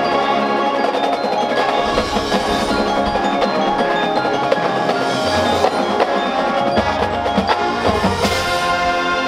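Marching band show music in which the front ensemble's mallet percussion stands out: bells, chimes and marimba ringing over sustained chords. A loud struck hit rings out about eight seconds in.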